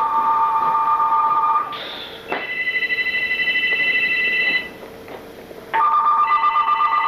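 Electronic ringer trilling in three bursts of about two seconds each, the middle burst pitched higher than the other two.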